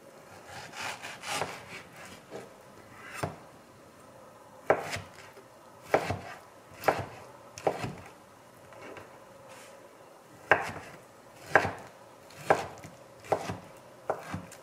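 Chef's knife slicing through a peeled ripe mango and knocking on a wooden cutting board. Softer cutting sounds at first, then a series of sharp taps, roughly one a second, as each slice comes down onto the board.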